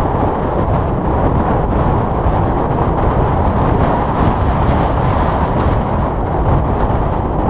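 Strong wind blowing across the microphone, a loud, steady low rumble.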